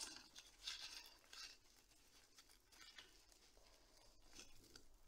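Faint, brief rustles of leaves and stems as thin string is wound tightly around a small bunch of flower stems.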